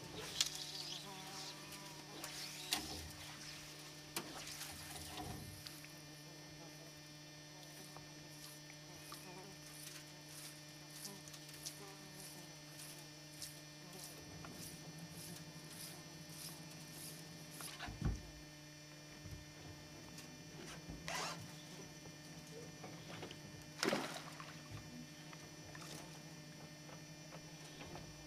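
A steady low hum, with a few brief swishes and knocks breaking in now and then.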